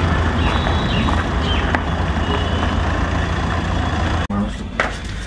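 A motor vehicle's engine running steadily with a low rumble, with a brief drop-out a little after four seconds in.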